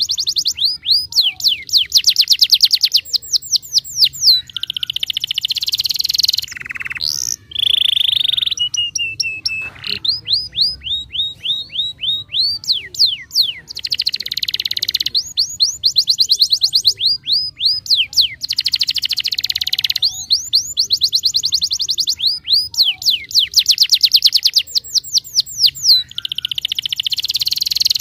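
Domestic canary singing a long unbroken song: runs of fast, repeated rising sweep notes alternating with dense buzzy rolls, and one short held note about nine seconds in.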